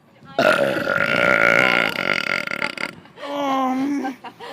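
A loud, drawn-out human burp lasting about two and a half seconds, with a raspy, pulsing sound. It is followed a moment later by a shorter vocal sound held on one steady pitch.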